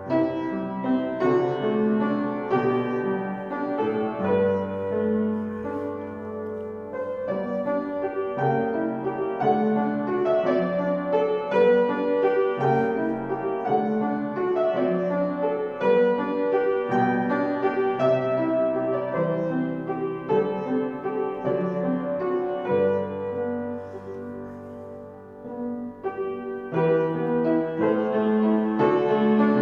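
Solo piano playing a slow, chordal piece with sustained bass notes, softening briefly about three-quarters of the way through before building again.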